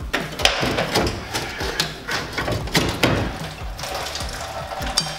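Irregular metallic clanks, clicks and rattles as the Fiat 600D's water pump and fan shroud are worked loose from the engine by hand.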